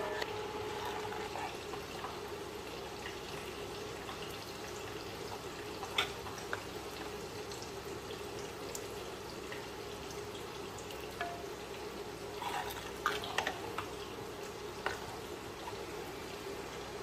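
A metal ladle stirs thick sambar in an enamelled cast-iron pot, the liquid sloshing softly. There are a few sharp clinks of the ladle against the pot: one about six seconds in and a small cluster a little after twelve seconds.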